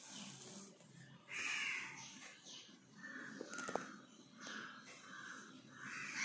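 Harsh cawing calls of a crow, repeated several times, each about half a second long, with a single sharp click a little under four seconds in.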